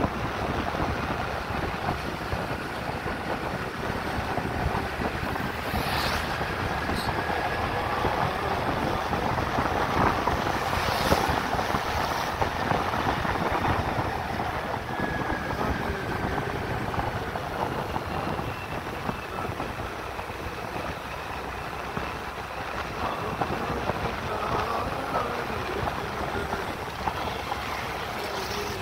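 Steady rushing noise of a moving scooter: wind buffeting the microphone over the engine and tyre noise on a wet road, with two brief knocks about six and eleven seconds in.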